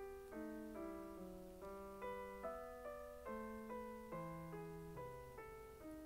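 Quiet background piano music: a slow, gentle run of single notes, about two a second, each fading before the next.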